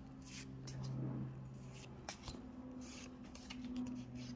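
Pokémon trading cards sliding and flicking against each other as they are moved through a pack, a few soft flicks over a steady low hum.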